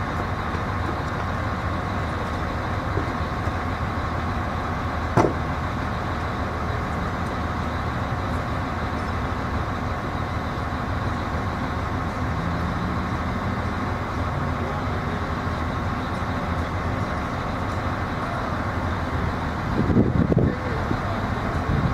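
Crane engine running steadily while holding a suspended load. A single sharp knock comes about five seconds in, and a short burst of louder knocking near the end.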